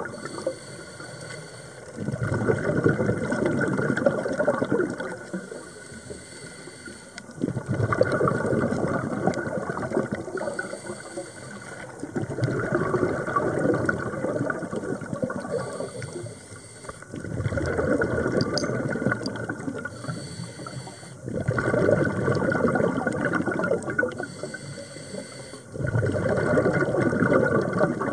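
Scuba diver breathing through a regulator underwater: a rushing, bubbling exhalation about every four to five seconds, six in all, with quieter hissing inhalations in between.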